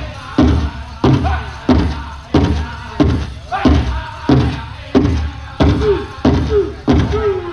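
Powwow drum group playing: a large hand drum struck by several drummers together in a steady beat of about one and a half strikes a second, with a group of men singing over it. The drumming stops near the end.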